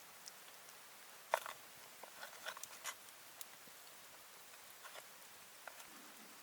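A few scattered small clicks and taps, bunched in the first half and loudest about a second in, over a faint steady hiss.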